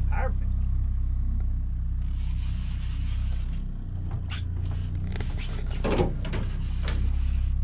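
Charter boat's engine running with a steady low drone, with stretches of high hiss coming and going over it and a few sharp clicks and knocks in the second half.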